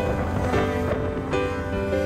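Background music: held notes with a new note or chord coming in every half second or so, over a steady low rumble.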